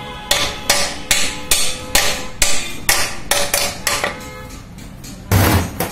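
Hammer tapping a flanged metal cover plate down onto a Mahindra Bolero gearbox casing to seat it: about a dozen quick strikes, two or three a second, each ringing briefly like metal. Near the end comes one louder, half-second clatter.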